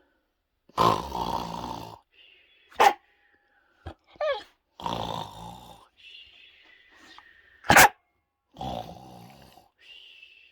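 A dog vocalising instead of settling down: three long, growly grumbles of about a second each, two short sharp barks, and thin high whines in between.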